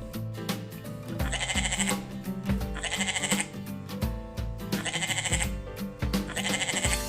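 A goat bleating four times, each call about half a second long, over background guitar music with a steady beat.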